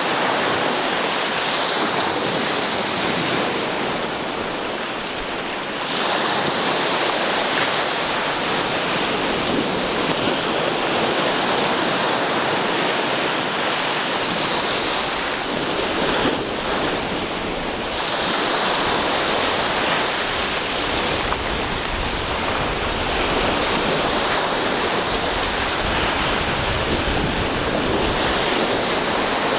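Ocean waves breaking and washing up the shore: a continuous rush of surf that swells and eases every several seconds.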